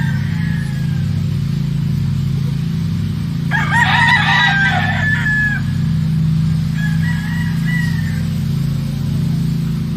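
Rooster crowing: one loud crow about three and a half seconds in, lasting about two seconds, with fainter calls from other fowl near the start and about seven seconds in.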